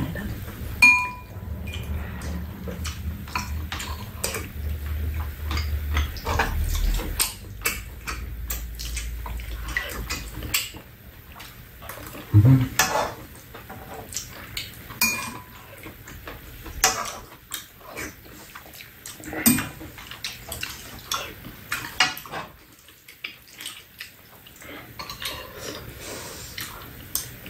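Eating at a table: spoons and chopsticks clink and scrape against bowls and a metal tray, with the mouth sounds of chewing and slurping. A low hum runs under the first ten seconds or so, then stops.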